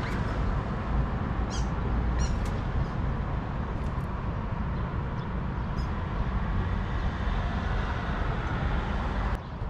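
Steady low outdoor rumble, with a few short high bird chirps scattered through the first half.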